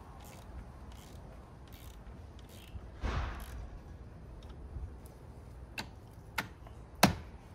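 Hand work at the car battery in the engine bay: a brief rustle about three seconds in, then a few sharp clicks about half a second apart, the loudest near the end.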